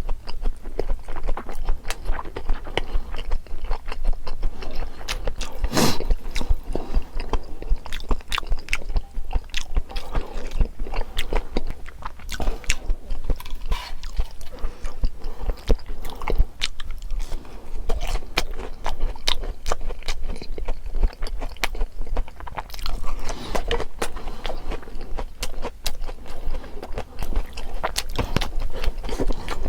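Close-miked eating: steady chewing and biting with many small wet and crunchy clicks, as in an ASMR-style mukbang.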